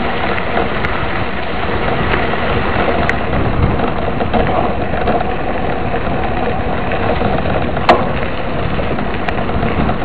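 Mountain bike rolling fast over a gravel dirt road, heard from a camera on the bike: a steady rush of tyre noise on loose gravel and wind on the microphone, with small rattles and clicks and one sharp knock about eight seconds in.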